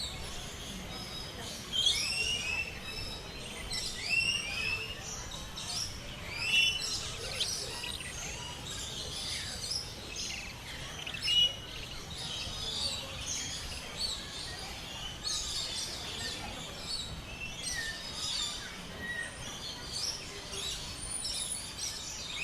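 A mix of captive birds calling together: many high chirps and whistles overlapping, with a loud curving call repeated about every two seconds in the first half.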